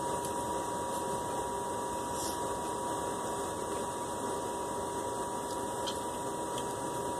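Steady background hiss with a constant thin high tone running through it, and a few faint ticks; no distinct eating sounds stand out.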